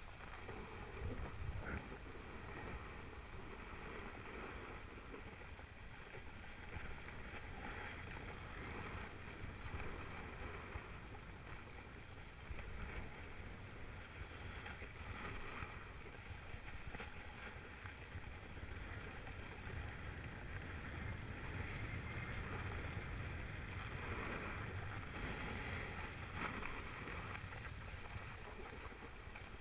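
Skis sliding over packed snow, a steady hiss and scrape that swells briefly as the skier turns, with wind buffeting the camera microphone as a low rumble.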